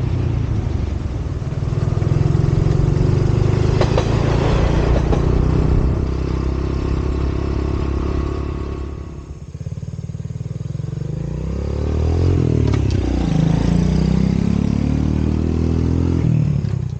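A vehicle engine running under way. It eases off about nine seconds in, then revs up again, its pitch rising and dropping back twice as it goes up through the gears.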